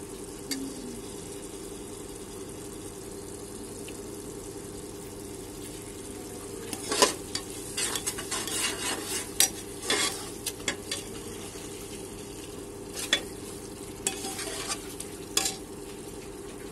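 Steel ladle scraping and knocking against the inside of a pressure cooker while stirring a sizzling tomato and yogurt masala. The scraping comes in two spells, about seven seconds in and again about thirteen seconds in, over a steady sizzle and low hum.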